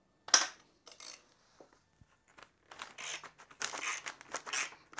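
Steel box-end wrenches clink sharply on a nut and stud, then give a run of short grating scrapes as the locked nut pair turns the stud out of an aluminium intake manifold.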